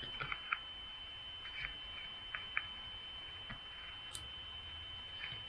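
Scattered small clicks and taps from parts of a handheld camera gimbal being handled and fitted together, about nine of them spread over several seconds, over a faint steady high-pitched tone.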